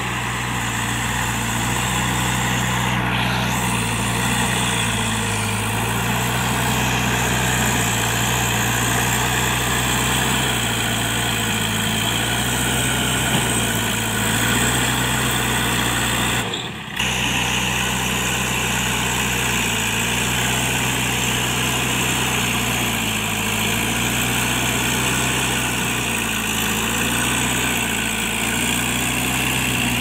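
JCB 3DX backhoe loader's diesel engine running steadily as the machine works its front loader bucket, its pitch shifting slightly up and down. The sound breaks off briefly a little past halfway.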